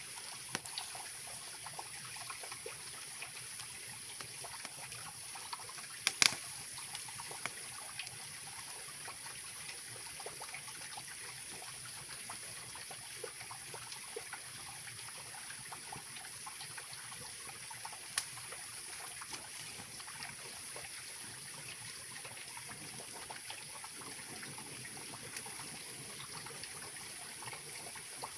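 Mountain river rushing steadily, with scattered sharp pops from a wood campfire crackling; the loudest pop comes about six seconds in.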